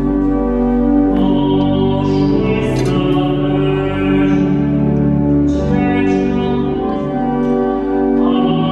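A Polish Christmas carol (kolęda): singing over sustained instrumental accompaniment, held notes that change slowly.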